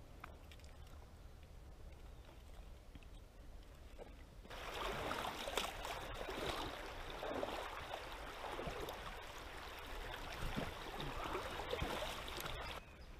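Water splashing and gurgling. It is faint for the first few seconds, then comes in much louder all at once about four and a half seconds in and cuts off just before the end.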